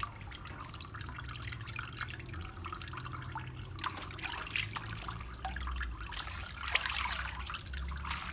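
Water splashing and trickling in a stainless steel sink as hands swish and rub a bunch of leafy greens under running water, with many small irregular splashes.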